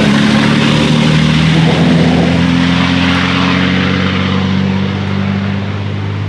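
Racing truck turbodiesel engine running loud and steady on the circuit, its note holding pitch and then fading a little over the last couple of seconds.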